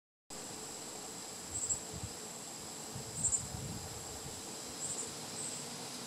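Insects trilling in one steady high, thin note, growing louder for a moment a few times, with soft low thumps about a second and a half and three seconds in.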